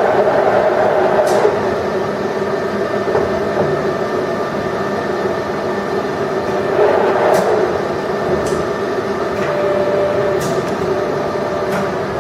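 Ryazan 1M63D screw-cutting lathe running under power: a steady mechanical hum made of several held tones, with a few sharp clicks scattered through it.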